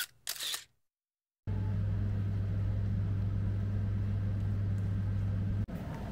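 Steady low rumbling hum of background ambience, broken near the start by a short dropout with two brief hissy clicks; near the end the hum gives way to a different, more even background noise.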